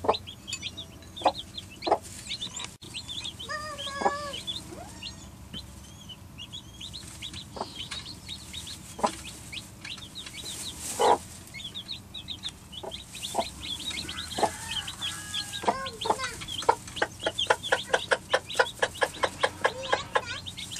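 Newly hatched chicks peeping in short, high, falling chirps, with the broody mother hen clucking low among them. Near the end her clucks come in a quick regular run, about four a second.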